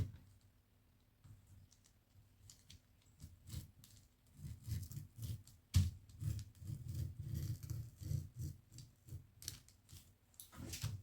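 Tracing wheel run over the pattern and fabric to mark darts: irregular clicky rasping strokes with dull knocks of hands on the table, busiest from about four to nine seconds in.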